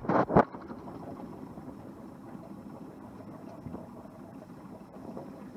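Boat engine idling steadily at low speed while docking. There is a brief loud knock right at the start.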